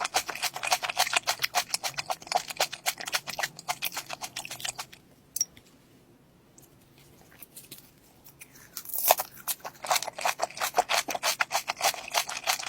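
Close-up crunching as crisp deep-fried battered seafood is chewed: rapid crisp crunches, a pause of about three seconds starting five seconds in, then the crunching resumes.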